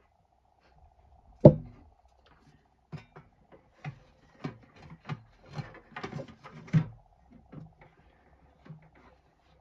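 Parts of a diesel heater being handled and fitted back together: one heavy knock, then a string of irregular clicks and clunks.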